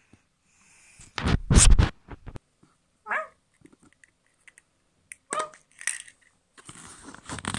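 Loud rubbing and knocking of handled toys against the phone's microphone for about a second, starting a second in. It is followed by two short, high whining cries about three and five and a half seconds in, with light rustling and clicks near the end.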